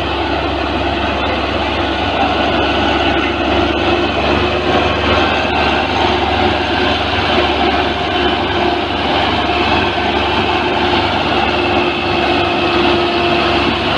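Belarus 510 tractor's diesel engine running steadily under heavy load as it drags a double disc harrow through tilled soil.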